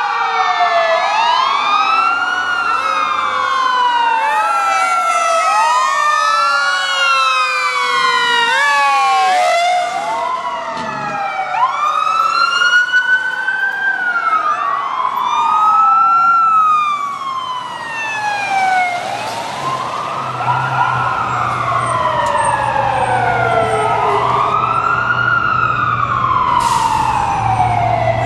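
Several emergency-vehicle sirens from responding fire trucks and police wail together: overlapping rising-and-falling sweeps at different pitches, each cycle a few seconds long. A low steady drone joins about two-thirds of the way through.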